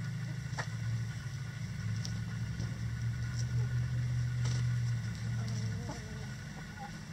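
Low, steady engine hum, swelling through the middle and dropping off about six seconds in, with a few soft hen clucks near the end.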